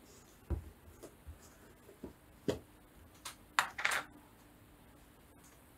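Paintbrushes and small craft tools being handled on a table while a stiff, clean brush is picked out for gesso: a string of light knocks and clicks, the loudest with a short scrape about four seconds in.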